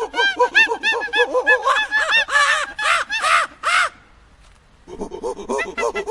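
Monkeys chattering and screeching in a rapid run of short calls that rise and fall in pitch, several a second. The calls break off for under a second about two-thirds of the way through, then start again.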